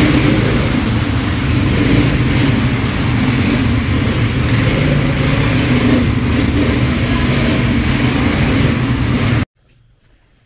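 ATV (quad bike) engine running steadily under way, heard from the rider's seat with a broad rushing noise over it. It cuts off abruptly near the end.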